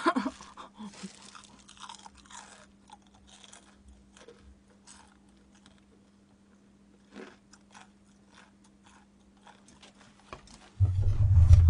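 Close-up chewing of crispy boneless fried chicken: crisp crunches of the fried coating in the first few seconds, then softer chewing with a few more crunches. Near the end a loud low rumble sets in.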